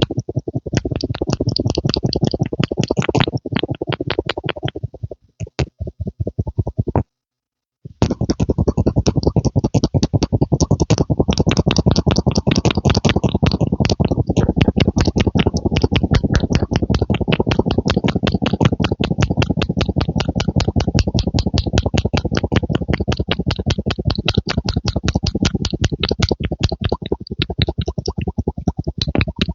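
Rapid, steady rhythmic pumping sounds made close to the microphone, several strokes a second. They stop for about a second around seven seconds in, then carry on.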